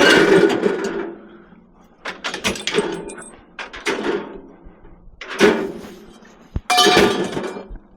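Scrap metal clattering as it is loaded onto the back of a truck: four separate crashes, each with a short metallic ring.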